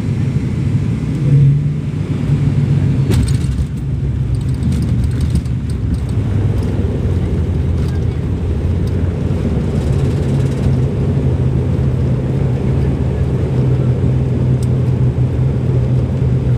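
Cabin noise of an ATR 72 turboprop airliner during landing: a loud, steady low propeller drone with engine rumble. Light rattling comes through briefly about three to six seconds in.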